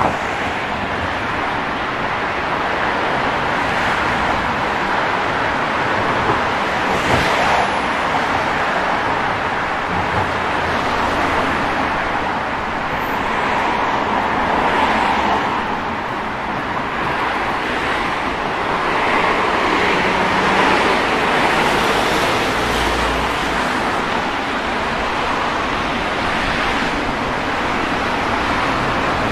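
City street traffic: cars passing in a steady wash of road noise that swells and eases every few seconds.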